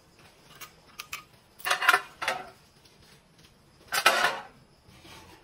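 Metal drawer fronts with chrome pull handles being handled and set down on a floor. A few light clicks come first, then two bouts of metallic clattering and rattling; the second, about four seconds in, is the loudest.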